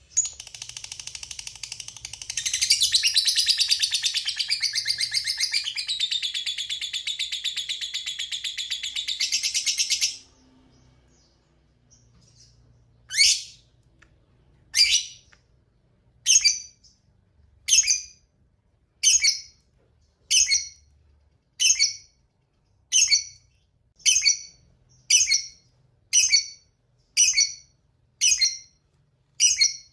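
Lovebird giving a long rapid chattering trill (ngekek panjang) for about ten seconds. After a short pause it switches to a series of single sharp calls, roughly one a second and quickening slightly.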